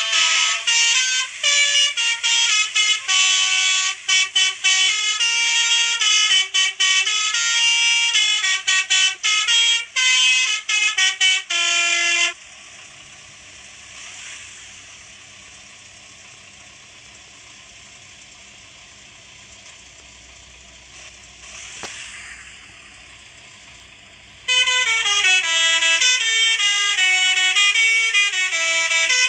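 Basuri-type telolet horn, a multi-tone electric musical vehicle horn, playing a melody of quick, changing notes. It stops about twelve seconds in and starts again with another tune about twelve seconds later.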